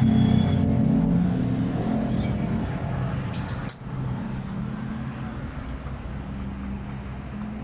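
A motor vehicle engine running steadily, slowly getting quieter, with a few sharp clicks about three and a half seconds in.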